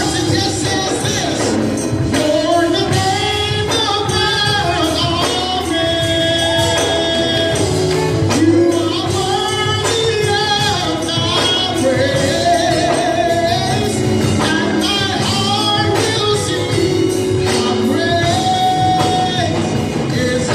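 Gospel worship song: singers over a band with a steady percussive beat.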